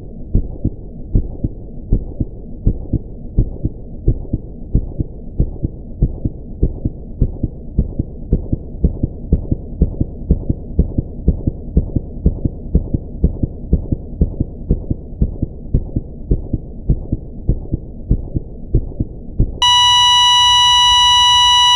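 Low, muffled thumping in a steady heartbeat-like rhythm, a few beats a second. Near the end it gives way to a loud, steady electronic beep that holds on.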